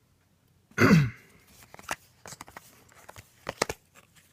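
A foil trading-card pack is torn open with one loud rip about a second in, followed by crinkling and a run of sharp little clicks as the cards are handled.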